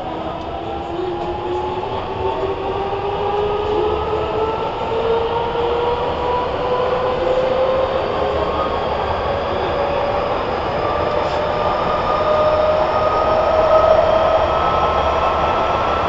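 Nagoya Municipal Subway N3000 series train accelerating, heard from inside the car: the traction motors and inverter give several tones that rise steadily in pitch over the rolling noise of the wheels, growing gradually louder.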